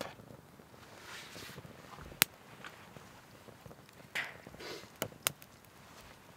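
Split kindling burning in a stainless-steel fire pit, crackling with a few sharp pops, the loudest about two seconds in. A brief soft rush of noise comes a little after four seconds.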